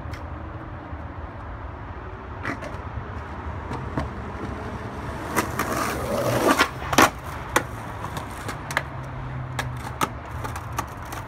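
Skateboard wheels rolling on rough asphalt with a steady low rumble, broken by sharp clacks and knocks of the board hitting the ground, a quick cluster of the loudest about six to seven seconds in and single knocks after.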